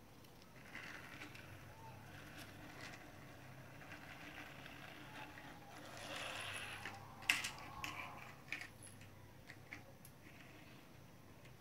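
Plastic toys being handled and rolled on a tiled floor: a faint rolling rustle, then one sharp click about seven seconds in and a few lighter clicks after as toys are set down.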